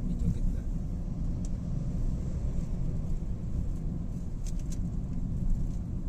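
Car cabin noise while driving: a steady low rumble of tyres and engine heard from inside the car, with a few brief faint ticks.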